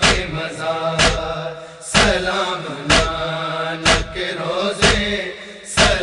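Instrumental break in a Muharram noha: a heavy beat about once a second under a held, chanted tone.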